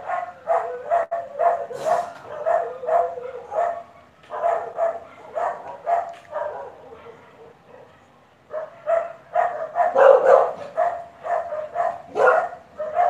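Old English bulldogs barking over and over, about two to three barks a second. The barks fade for a couple of seconds past the middle, then come back louder.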